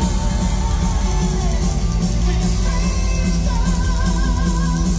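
Live rock band playing a power-metal ballad: electric guitar, drums and bass under a male singing voice held with vibrato.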